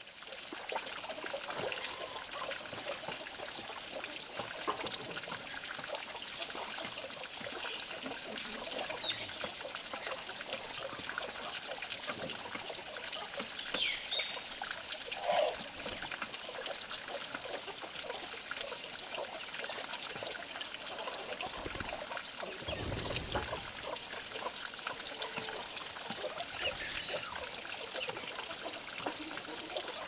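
Steady trickle of running water, with a few faint short sounds over it.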